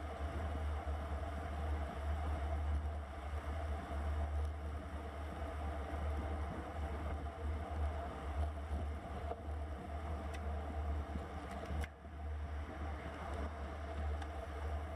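Wind buffeting a bike-mounted camera's microphone at road-cycling speed: a steady low rumble with a hiss of tyres on wet pavement, dipping briefly about twelve seconds in.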